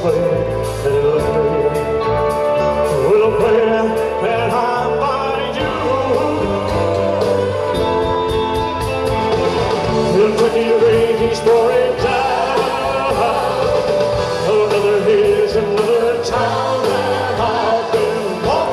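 Live rock band playing loudly, with trumpets, drums, electric bass and electric guitars, and a voice singing held notes over the band.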